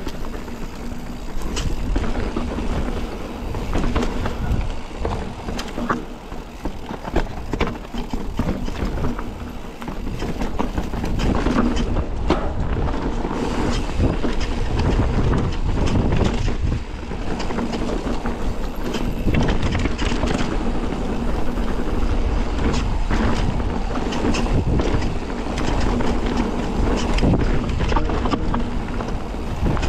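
Mountain bike running down a dirt trail: wind buffeting the microphone and tyre rumble, with frequent rattles and knocks from the bike over bumps.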